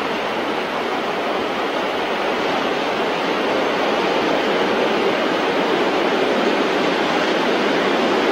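Steady rushing rumble of a train rolling over the station tracks, slowly growing louder.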